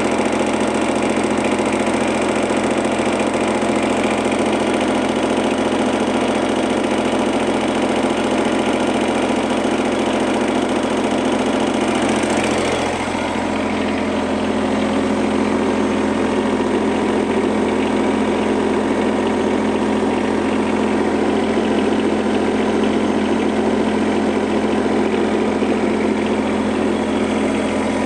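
Mini excavator's engine running steadily at idle. About halfway through there is a short burst of noise and the level dips slightly, then the idle carries on.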